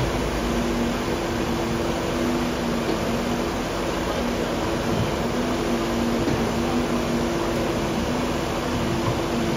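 Caterpillar 335F excavator's diesel engine and hydraulics running steadily as it works its bucket in the trench: a steady hum that fades in and out over an even wash of machine noise.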